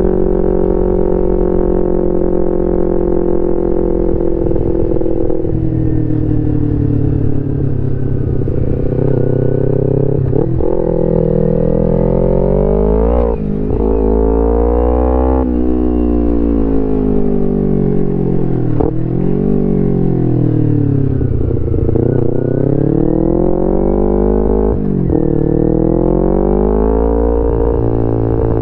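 A 2011 Kawasaki Ninja 250R's parallel-twin engine, through a full Graves racing exhaust, running under way. The revs hold steady, ease off, then climb and drop sharply several times as it shifts up through the gears, with a stretch of slowing down between the pulls.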